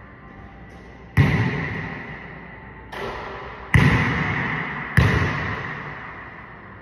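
A basketball banging off the hoop and bouncing on the hardwood court: four sharp bangs, the second one weaker, each followed by a long echo in a large hard-walled gym.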